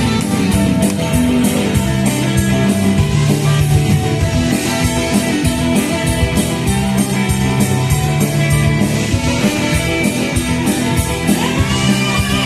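Music with guitar and a steady beat; a singing voice comes in near the end.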